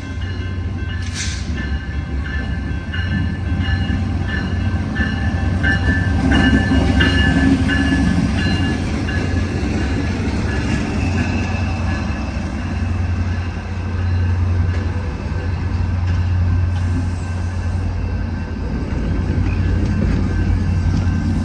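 Commuter train departing, its MPI MP36PH-3C diesel-electric locomotive's EMD diesel engine running with a steady low hum over the rumble of the rolling cars. It is loudest about six to eight seconds in.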